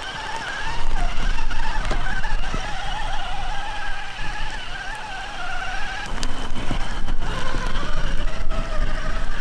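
Traxxas TRX-4 RC truck's HobbyWing sensored brushless motor and drivetrain whining, the pitch wavering up and down with the throttle as it drives over rough grass. From about six seconds in the whine drops lower and the tyres crackle and knock through mud and clods as it climbs.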